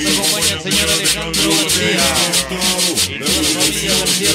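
Mixed dance music from a sound-system DJ set: a pulsing bass beat in even blocks under a continuous scratchy, scraping percussion and bending melodic lines.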